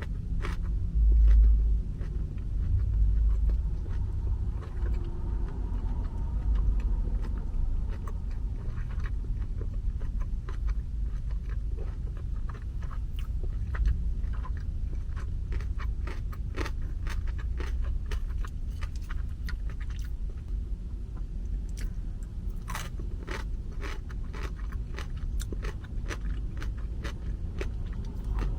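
Chewing a mouthful of pork cutlet kimbap, with many small wet mouth clicks and crunches, over a steady low rumble.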